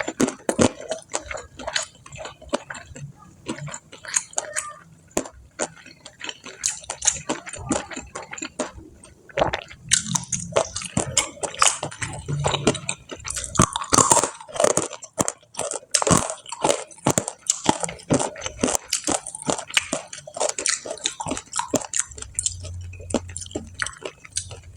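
Close-up eating sounds: crunchy fried food being bitten and chewed, a dense run of irregular crisp crackles, busiest in the second half.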